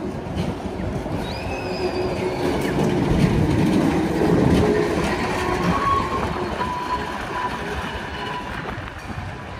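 Tram rolling along its rails, growing louder toward the middle and then easing off, with thin high squeals from the wheels.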